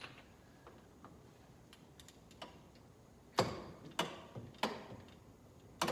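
Ratchet and socket clicking while a spark plug is loosened and backed out, with faint ticks at first and then about four sharp clicks in the second half, roughly half a second apart.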